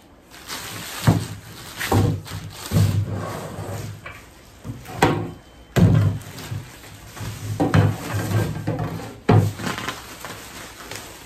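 Metal linear rails being set down and shifted on a workbench: a series of about seven clunks and clanks, with plastic packaging rustling.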